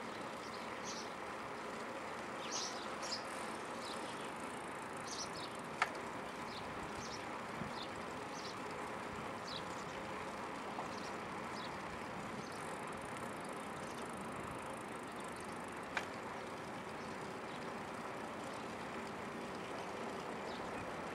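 Steady road and engine noise of a car driving, heard from inside the car, with scattered small high squeaks and two sharp clicks, about six seconds in and again near sixteen seconds.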